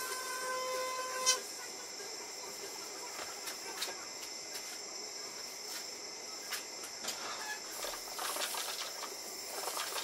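Philips Sonicare sonic electric toothbrush buzzing steadily in the mouth, stopping with a sharp click about a second in. Then soft clicks as a mug is handled and the sound of water being swished in the mouth to rinse.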